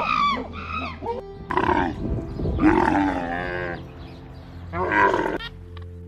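A run of animal calls over background music: two short calls in the first second, a longer, lower call lasting about two seconds, and another short call near the end.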